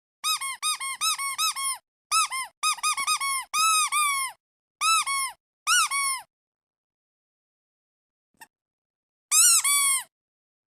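Squeaky duck toy being squeezed repeatedly: quick runs of short, high squeaks, each rising and then falling in pitch. A fast string of about six squeaks, another run, a pair, a pause, then two louder squeaks near the end.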